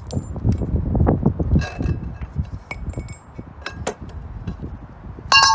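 Metal parts and tools clinking and tapping while a wheel is taken apart, over a low rumble. Near the end a sharp metal clank rings on in several clear tones.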